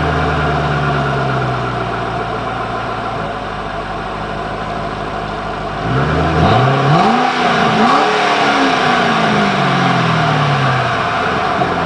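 2006 Ford Mustang GT's 4.6-litre V8 on its stock mufflers, idling steadily, then blipped twice in quick succession about six seconds in, its revs falling slowly back to idle.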